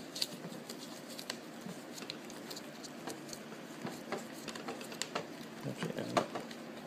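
Small, irregular scratching and clicking handling noises as bits of styrofoam are pressed into a screw hole in a plastic toy rifle, over the steady hum of an air conditioner.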